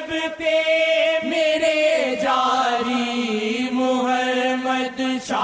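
Devotional chanting of a Punjabi naat: a voice holds long, drawn-out notes with slow pitch bends. A new phrase begins about two seconds in.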